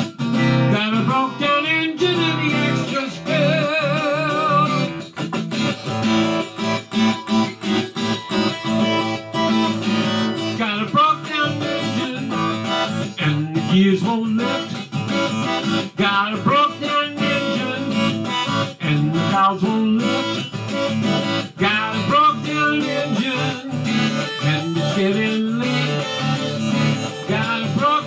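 Acoustic guitar strummed steadily under a harmonica played from a neck rack, its melody bending and wavering: an instrumental break between the verses of a song.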